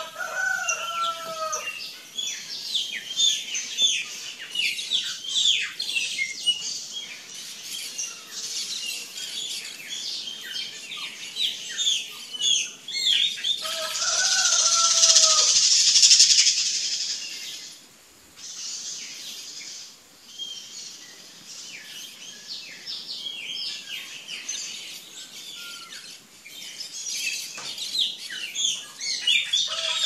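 Birds chirping in many quick, high, short notes. A lower, longer call comes three times: near the start, about halfway through, and at the end. A patch of steady hiss rises and stops about halfway through.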